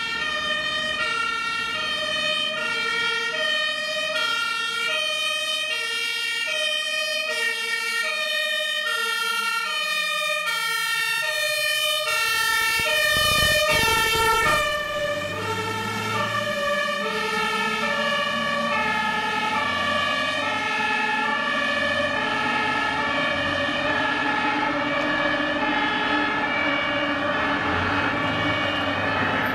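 German two-tone fire-engine siren (Martinshorn) alternating steadily between a high and a low tone as fire trucks drive by on emergency signal. It is loudest about halfway through as one truck passes close, with its engine rumble, and the siren carries on with engine noise under it as the trucks drive off.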